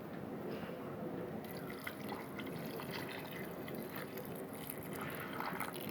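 Faint liquid sounds: many small drips and ticks over a steady low hiss.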